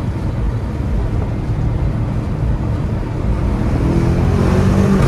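BMW M5 F90's twin-turbo 4.4-litre V8, fitted with catless downpipes and an aftermarket air intake, heard from inside the cabin. It runs steadily under way, then about three and a half seconds in the car accelerates, with the engine note rising in pitch and growing louder.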